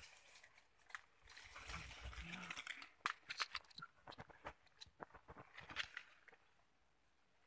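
Leaves and branches of a coffee tree rustling as a monkey climbs through them: a stretch of soft rustling, then a quick run of sharp crackles and twig snaps that dies away near the end.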